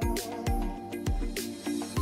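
Background music: a steady beat, about two a second, under sustained chords and a melody.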